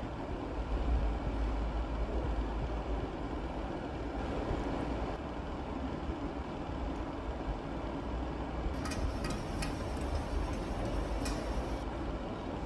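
Steady low rumble and hiss of background noise, with a cluster of several short, sharp hissing or scraping sounds about nine to eleven seconds in.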